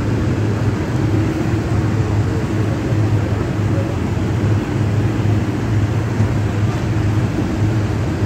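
A large engine running steadily, a low hum over a wash of noise.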